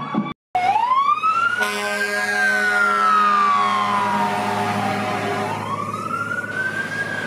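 Fire engine siren wailing: a slow rise, a long fall, then another rise. A steady horn sounds alongside it for about four seconds, starting near the second second, over the truck's engine.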